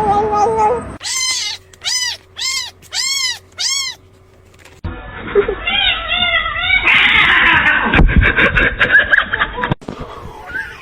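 A cat meowing: about five separate drawn-out meows, each rising and falling in pitch. Then three shorter, quicker meows, followed by a stretch of scuffling noise.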